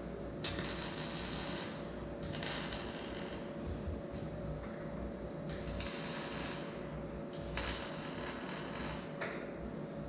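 Electric arc welding on a square-tube steel frame: four short welds, each a crackling hiss of about a second and a half that starts and stops abruptly, with short gaps between them. A steady low hum sounds underneath.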